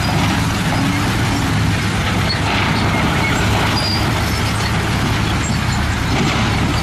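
A heavy dump truck's diesel engine runs steadily as its raised tipper bed unloads rock and dirt. The load slides and tumbles out as a continuous rushing rumble over the engine.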